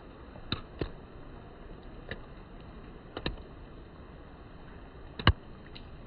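Several sharp clicks and knocks at uneven intervals over a steady background hiss, the loudest a knock about five seconds in.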